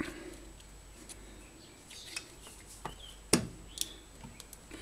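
Scattered light clicks and knocks of a small electric grass-trimmer motor's parts being handled and pressed together during reassembly, with one sharper knock a little over three seconds in.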